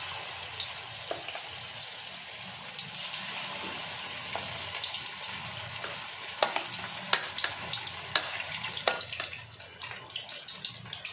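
Spice-marinated chicken pieces deep-frying in hot oil: a steady sizzle with scattered sharp pops, most of them in the second half.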